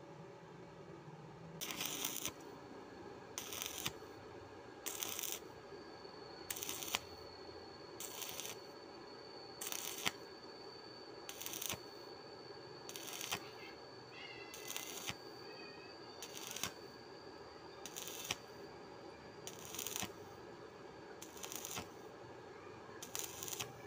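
Stick-welding arc crackling and hissing, swelling into a loud burst about every second and a half in a steady rhythm, over a low continuous hiss.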